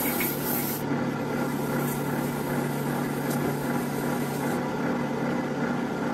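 Metal lathe running steadily with a steel workpiece spinning in the chuck, a low even hum. A short hiss of aerosol spray lubricant lasts about the first second, then rubbing as the spinning piece is hand-polished.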